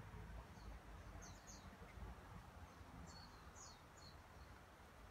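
Near-quiet outdoor background with a few faint, short, high bird chirps, a pair just over a second in and a small cluster a little after three seconds.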